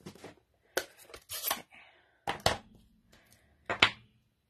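About five short clacks and knocks of craft supplies being picked up and set down on a tabletop, among them a stamp pad in its plastic case, with the loudest knock near the end.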